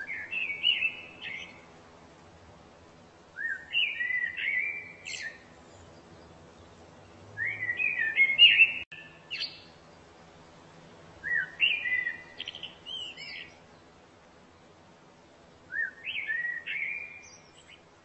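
A songbird singing short phrases of quick gliding notes, about two seconds each, repeated five times every three to four seconds.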